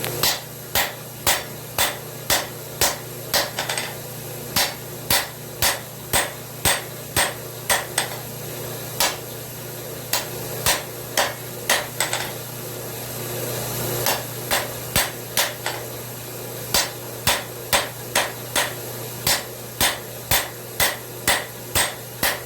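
Hammer striking a hot railroad spike on an anvil, drawing out the tip by hand: regular ringing blows about two a second, with a few short pauses, over a steady low hum.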